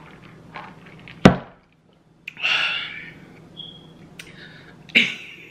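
A single sharp knock about a second in, the loudest sound, followed after a brief gap by a short breathy rush of noise and a few light clicks.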